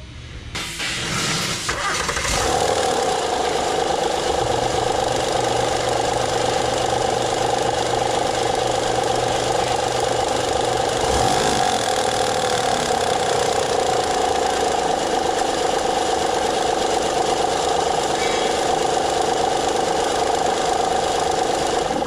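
Honda 3.5-litre V6 idling with a fast, steady ticking, knocking rattle from the front of the engine: the chatter of a failing hydraulic timing belt tensioner that has leaked its fluid and no longer holds pressure on the tensioner pulley.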